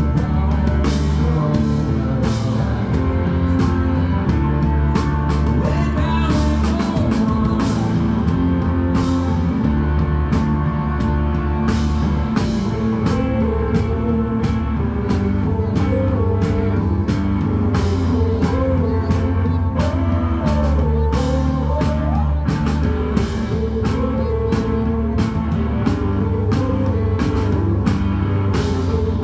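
Rock music with singing, guitar and drums, loud and steady throughout.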